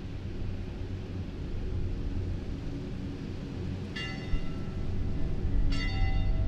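A low steady drone, with a bell struck twice in the last few seconds, the strokes under two seconds apart, each one ringing on and slowly fading.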